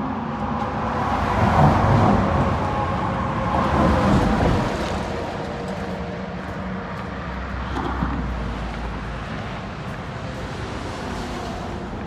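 Highway traffic: passing vehicles, trucks among them, making a steady rush that swells loudest in the first few seconds and then settles to a lower, even level.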